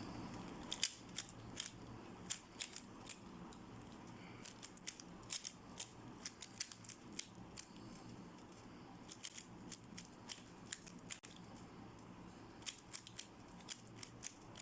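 A 3x3 speed cube being turned rapidly during a timed solve: quick, irregular plastic clicks of the layers turning, a few a second.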